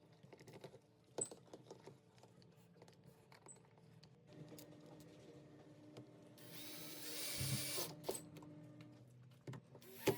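Power drill running while driving screws, with a steady hum for a few seconds that gets louder for about a second and a half in the latter part. Light clicks and knocks of parts being handled come first.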